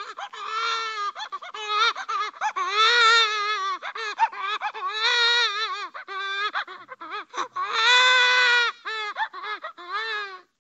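Cartoon cry-baby crying sound effect: a high-pitched voice wailing in several long, wavering cries broken up by short choppy sobs. It starts abruptly and cuts off just before the end.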